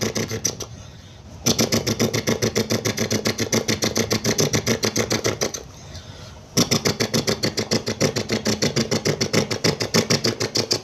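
A person imitating rapid gunfire with the mouth: a fast rattle of about twelve pulses a second. It comes in three runs, broken by two short pauses, about a second in and about six seconds in.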